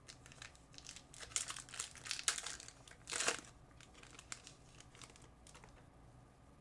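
Crinkling and rustling of a trading-card pack's wrapper as the cards are handled: a run of rustles starting about a second in and loudest around two to three seconds in, thinning to a few light clicks.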